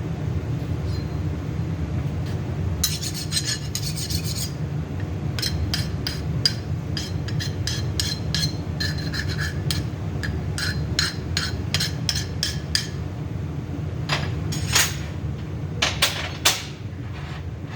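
Hand deburring of steel connecting rods: short rasping, scraping strokes of a file or deburring tool breaking the edges of the rod bolt holes, then a few sharp metal clicks near the end, over a steady low hum.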